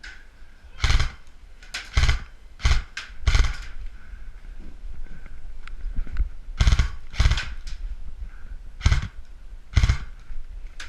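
Airsoft electric rifles firing: about eight sharp cracks or short bursts in irregular groups, two to four close together, then a pause.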